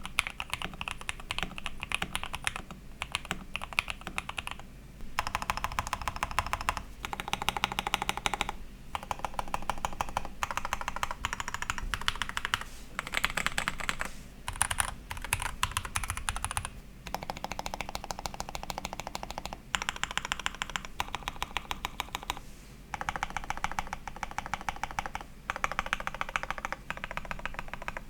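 Rapid typing on a modded Rexus Daxa M64 60% mechanical keyboard fitted with SP-Star Yanyu switches, Cherry-profile Corgi PBT keycaps, an O-ring gasket mount, tempest tape and PE foam: a dense patter of keystrokes in runs of a few seconds, broken by brief pauses.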